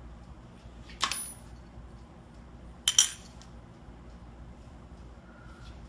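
A coin clinking on the small dish of a No-Face coin-bank toy: one metallic click about a second in, then a sharper double clink about three seconds in.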